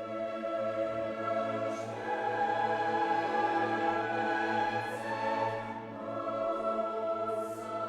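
Background music: a choir singing with orchestra in long, held chords.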